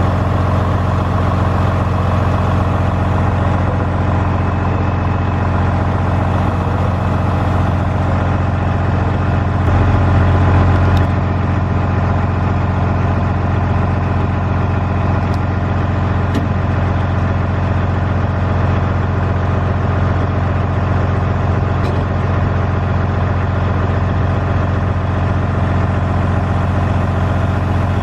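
Large diesel engine of a combine harvester running steadily, with a steady low hum that swells briefly about ten seconds in.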